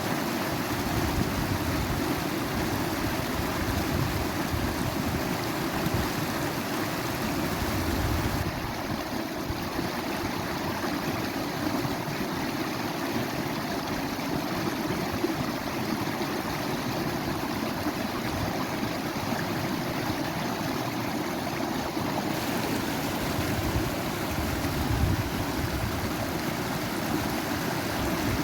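Running water rushing steadily in a continuous wash, as of a forest stream or cascade. The highest hiss thins out about eight seconds in and returns about twenty-two seconds in.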